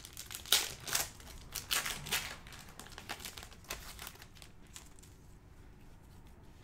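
Crinkling and rustling of a plastic trading-card pack wrapper handled in gloved hands as the stack of cards is slid out, a string of short crackles that thins to faint rustle after about four seconds.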